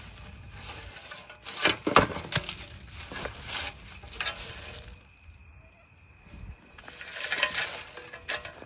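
Rustling and scuffing through leaf litter and brush, with several sharp knocks, the loudest about two seconds in, and a quieter spell a little past the middle.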